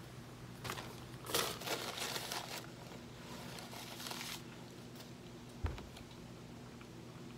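Cardboard frozen-meal carton and its packaging being handled, crinkling and rustling for about three and a half seconds, then a single thump a little over a second later.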